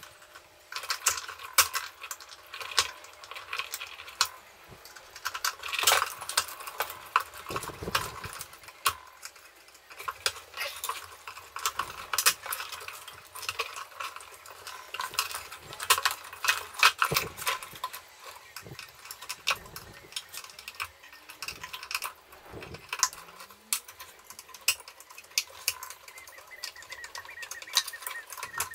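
Irregular metallic clinks, rattles and scrapes as old wiring and parts are pulled and bent by hand inside the chassis of a vintage electrical unit.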